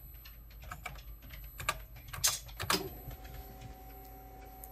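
Keys being typed on a TRS-80 keyboard: irregular clicks, with a couple of louder strokes a little after two seconds in as the load command is entered. From about three seconds in a steady whining hum sets in.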